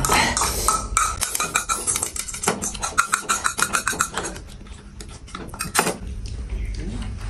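Chopsticks clicking and tapping against noodle bowls in a quick, dense run of clicks while noodles are eaten fast. The clicks die down near the end.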